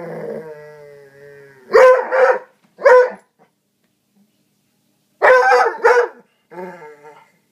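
Foxhound/springer spaniel mix growling, a long drawn-out sound that sinks slowly in pitch, then barking: a quick double bark and a single bark. After a pause of about two seconds comes another double bark, and a short growl near the end.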